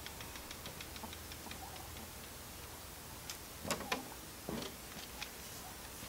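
Paint roller clicking in quick, even ticks as it rolls oil stain onto cedar deck boards. A few louder knocks come about two-thirds of the way through.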